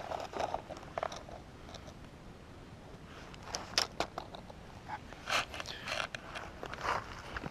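Footsteps crunching over dry ground and gear scraping and rustling as a player moves, with scattered sharp clicks and scratches.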